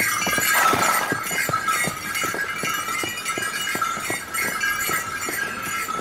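An irregular run of sharp clacks, about three or four a second, over a steady high-pitched background tone.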